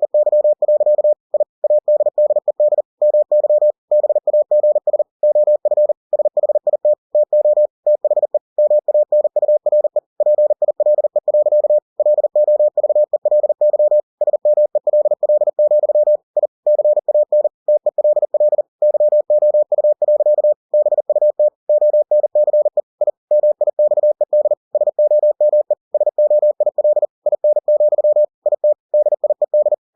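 Morse code (CW) sent at 40 words per minute by ebook2cw software: a single steady tone keyed on and off in rapid dits and dahs, with brief pauses between words.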